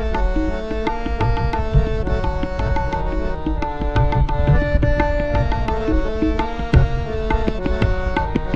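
Instrumental interlude in a Hindustani devotional song: tabla keeping a steady rhythm under a melody played in held notes that step from pitch to pitch.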